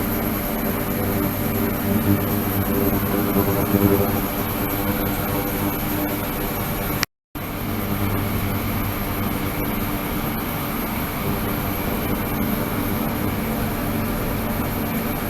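Steady machine hum with a constant pitch over a hiss, broken by a moment of total silence about seven seconds in.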